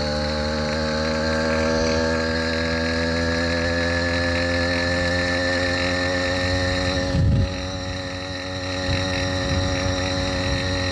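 Motorized bicycle's kit engine running hard under load up a long hill, its pitch creeping slowly higher. A brief thump about seven seconds in.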